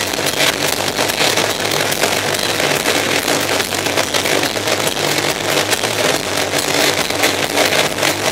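Black metal band playing live: distorted electric guitar over fast drumming, a dense wall of sound with rapid drum hits throughout.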